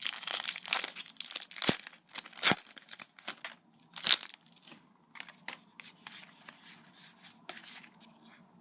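Foil Pokémon booster pack wrapper crinkling and tearing open: dense crackling for the first couple of seconds with a few sharp crackles, then scattered fainter crinkles that die away.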